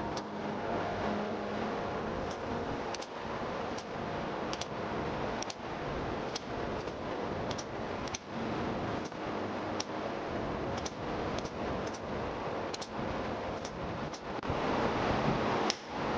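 Hand hammer striking hot steel on an anvil, with sharp blows at a steady pace of roughly one a second over a continuous rushing roar.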